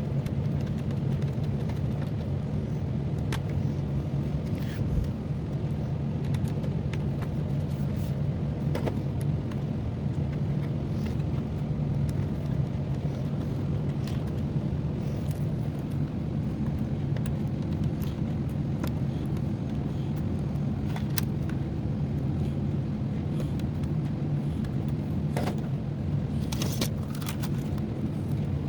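A steady low hum, with scattered small metallic clicks and taps as screws are handled and driven in with a screwdriver.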